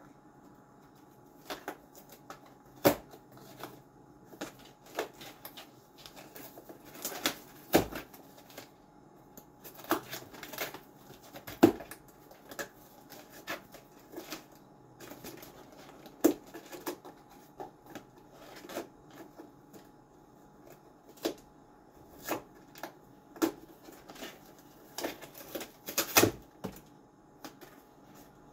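A cat scratching, clawing and biting at a cardboard box to get at the cat food inside, making irregular crackling, tearing clicks with a few sharp snaps.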